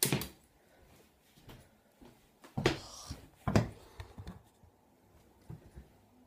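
A few sharp knocks and bumps from a phone being handled and set down, with a brief scrape about three seconds in.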